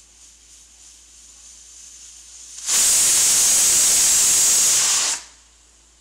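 Stovetop pressure cooker whistling: steam blasts out past the vent weight in one loud hiss lasting about two and a half seconds, then cuts off sharply. A faint hiss rising before it marks the pressure building to the whistle.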